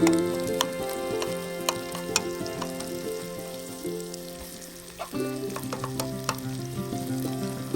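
Food frying in a pan, sizzling with frequent sharp crackles and pops, under background music of held notes whose chord changes about five seconds in.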